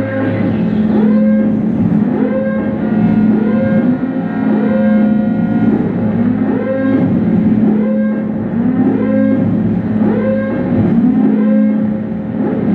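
Experimental live music from an electric guitar fitted with a body-mounted electronics box: a steady low drone under an upward-swooping tone that repeats about once a second.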